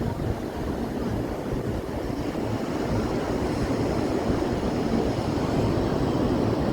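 Steady outdoor noise with a low, fluctuating rumble, growing slightly louder after a few seconds.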